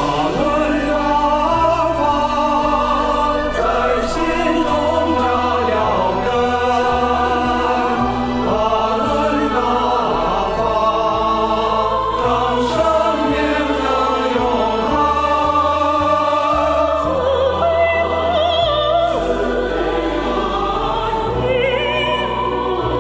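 A song in Chinese sung by a choir over orchestral accompaniment.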